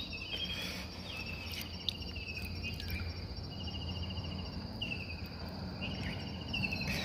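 Insects chirring with one steady high note, and several short pulsed trills that repeat every second or two. A few faint knocks and splashes come from a gill net being hauled over the side of a small wooden boat.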